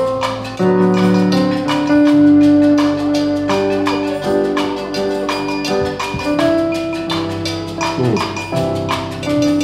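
Yamaha portable electronic keyboard playing a hymn introduction: held chords and melody notes changing about once a second, over a steady beat of short percussion clicks.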